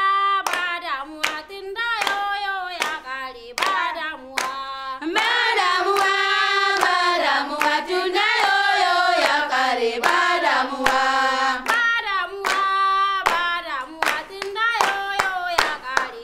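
Women singing a song unaccompanied, with steady hand clapping about twice a second; a single voice leads, and a group of voices joins in through the middle.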